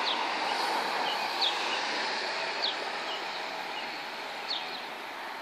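Small birds giving short, high chirps every second or so over a steady background hiss.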